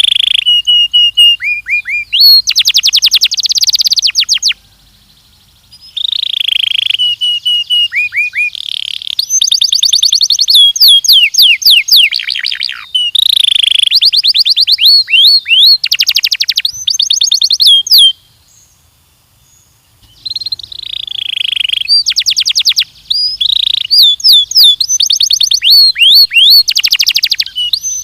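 Belgian canary singing: fast trills of rapidly repeated sweeping notes mixed with held whistled notes, in phrases broken by two short pauses, about five seconds in and again around two-thirds through.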